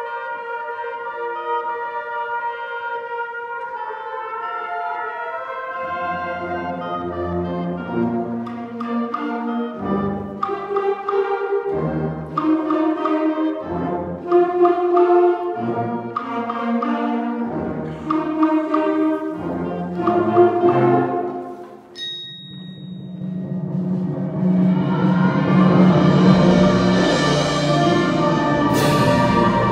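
A middle-school concert band playing live: held chords at first, then accented, rhythmic chords with low brass entering. About two-thirds of the way in it drops briefly to a single high ringing note, then swells to a loud full-band passage with a sharp crash near the end.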